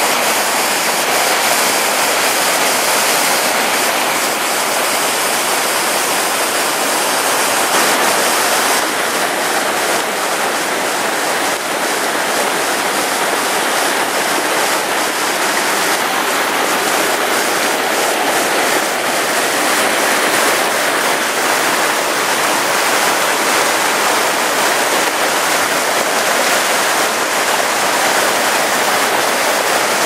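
Steady rush of a mountain stream cascading over boulders in white water.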